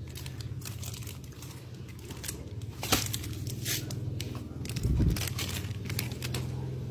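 Dog crunching and chewing Fita crackers, a run of irregular crisp crunches with a sharper crack about three seconds in and a dull thump about five seconds in.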